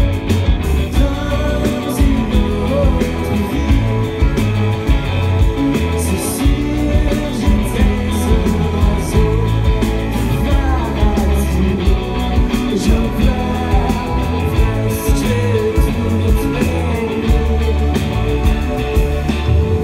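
Live rock band playing at full volume: two electric guitars over bass guitar and a drum kit, with steady cymbal hits.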